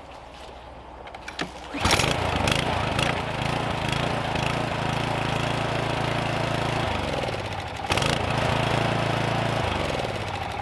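Toro TimeMaster lawn mower's 223cc Briggs & Stratton engine pull-started without priming, catching on the first pull about two seconds in and running steadily. Its pitch falls around seven seconds, it starts again suddenly about a second later, and it winds down near the end.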